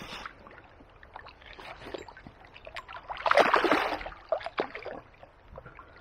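A hooked barbel splashing at the surface of the river margin as it is drawn into the landing net, with small splashes and then a loud burst of thrashing about three seconds in that lasts about a second, followed by a few sharper splashes.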